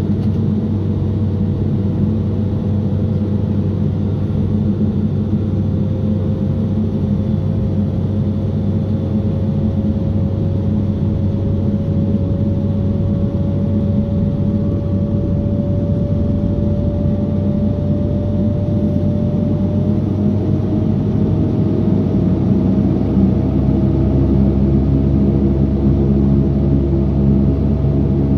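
Saab 340B turboprop engine starting up, heard from inside the cabin: a steady rumble with a whine that slowly rises in pitch as the engine spools up, and a deeper, louder rumble coming in about three-quarters of the way through.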